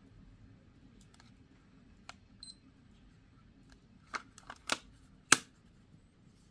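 Plastic clicks from a Canon CC-10 alarm clock calculator being handled and its buttons pressed: a few faint clicks, one short high electronic beep about two and a half seconds in, then a run of sharper clicks near the end, the last two the loudest.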